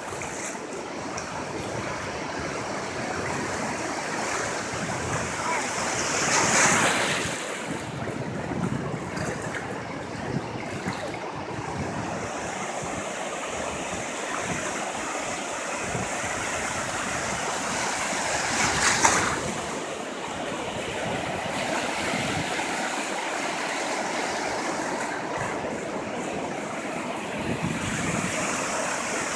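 Ocean surf: a steady rush of waves washing onto the beach, with two louder wave breaks, one about a quarter of the way in and one about two-thirds of the way in.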